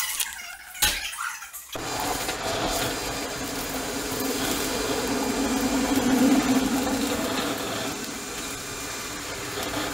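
Sheets of paper rustling as they are handled and turned, then from about two seconds in the steady running noise of a train heard from inside the carriage, with a low hum that swells a little in the middle.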